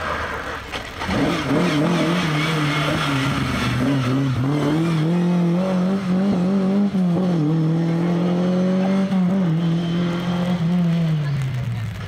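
Lada VFTS rally car's four-cylinder engine driven hard out of a hairpin. The engine note climbs about a second in and holds high with several brief dips, then drops back near the end as the car pulls away.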